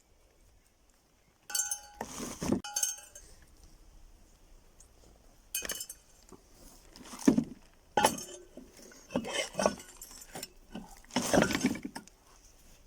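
Metal parts clinking and clattering as they are handled, in several separate bursts, a few with a short metallic ring.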